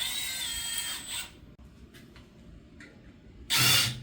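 Power drill run briefly twice to drill out the rivets on a metal bracket: a whine of about a second at the start, then a short burst near the end.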